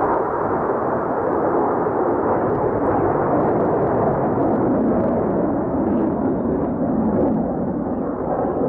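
Steady, loud engine noise from a formation of air show display aircraft flying overhead, trailing smoke.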